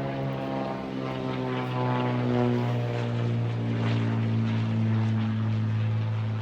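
Propeller aircraft droning overhead, a steady low hum whose higher overtones slowly fall in pitch as it passes.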